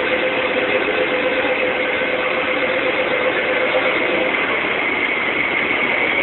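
An East Rail Line SP1900 electric multiple-unit train running slowly past a platform. It gives a steady rumble with a whine near the top, and a lower tone fades out about four seconds in.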